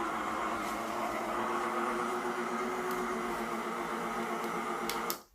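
Daewoo Aquajet cordless spin mop's motor running with a steady hum as it drives the mop pads. It cuts off suddenly near the end, just after a couple of clicks.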